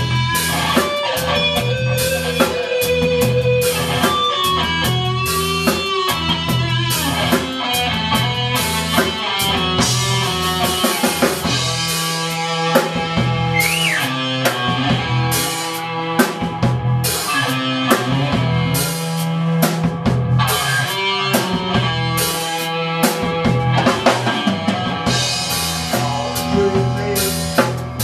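Live rock band playing: guitar lines over a drum kit, with a steady repeating low part and regular drum hits.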